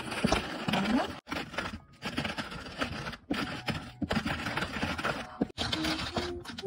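Dry scraping and rubbing from objects being handled, in irregular stretches broken by brief gaps.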